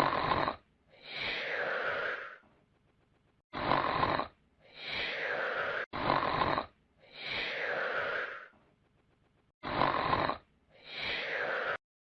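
Comic snoring sound effect: four snore cycles, each a short rasping in-breath followed by a longer out-breath that falls in pitch.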